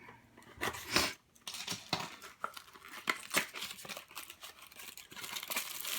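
Packaging crinkling and tearing in short crackles and rustles as an item is unwrapped by hand, the rustling growing denser near the end.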